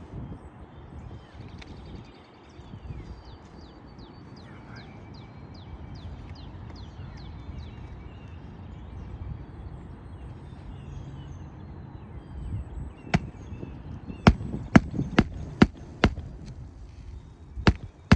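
Hammer driving roofing nails into an asphalt shingle. About seven sharp strikes come in quick runs over the last five seconds.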